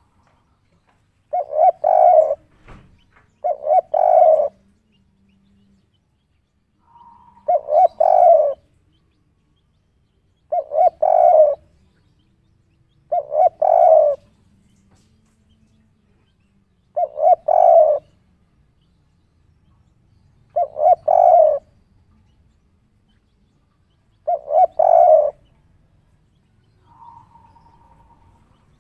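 Spotted dove cooing in its three-note 'kuk 3' phrase, repeated eight times, a phrase every few seconds with quiet between.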